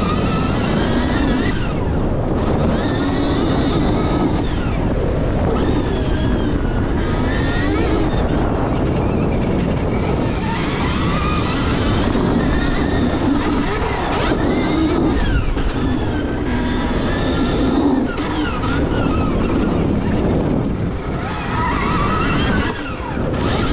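Stark VARG electric dirt bike's motor whining, its pitch rising and falling over and over as the throttle is worked, over a steady rushing noise, heard from a chin-mounted helmet camera.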